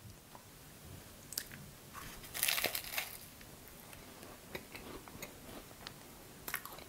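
A bite into a flaky puff-pastry cream horn, with a crunch about two and a half seconds in, then quiet chewing with small scattered mouth clicks.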